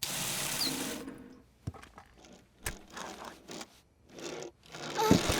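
Cartoon sound effects of a toy car whirring across a table, then a clatter of small knocks and clicks as breakfast cereal spills and scatters.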